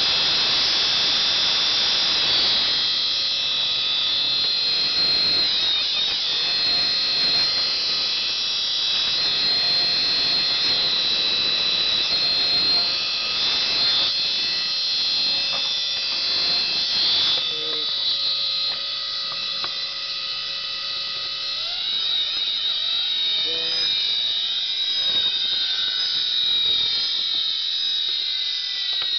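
Opened hard drive spinning with a loud, shrill, steady whine of several high tones from its damaged spindle bearings, with a few faint knocks as it is handled. From about two-thirds of the way in, the tones waver and slide up and down in pitch.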